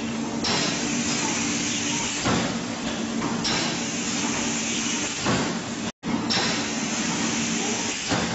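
Horizontal form-fill-seal pouch packaging machine running through its cycle. A knock and a burst of air hiss come about every three seconds over a steady hum. The sound cuts out briefly about six seconds in.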